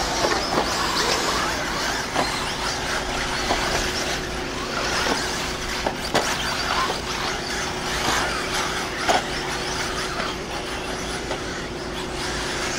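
Eighth-scale electric RC buggies running on a dirt track: a steady mix of high-pitched electric motor whine and tyre noise, with a few sharp knocks along the way.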